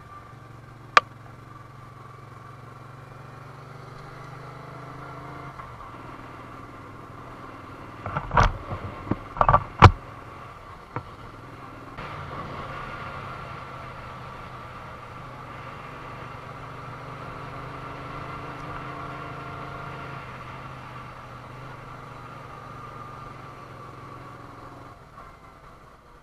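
Moto Guzzi V35's air-cooled transverse V-twin running steadily on the move, heard from the bike. A sharp click comes about a second in, and a short cluster of loud knocks about eight to ten seconds in is the loudest thing.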